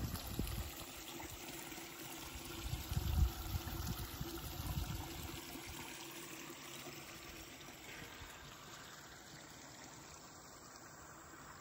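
Outdoor ambience of a rural field: wind buffets the microphone in low gusts during the first five seconds, then settles to a soft, even hiss.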